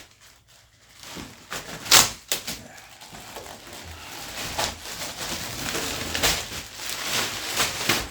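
Rustling and clattering of packaging being handled, with a sharp knock about two seconds in and further clicks through the rustle.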